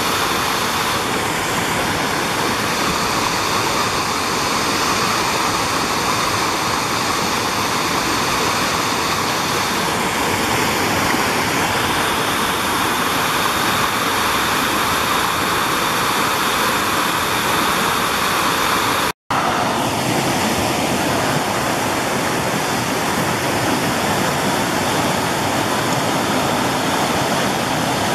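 Woodland brook rushing over rock ledges and small cascades into pools: a steady, loud rush of water, broken once by a split-second gap about two-thirds of the way through.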